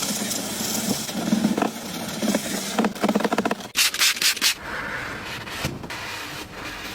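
Soapy scrubbing on a car's body: repeated rubbing strokes, with a run of quicker, sharper strokes around the middle.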